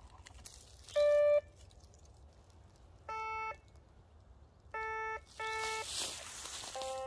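Dr. Otek MT-XR metal detector giving short electronic beeps: a higher one about a second in, then lower ones about three seconds in, a quick double about five seconds in, and one more at the end. Dry leaf litter rustles just before the last beep.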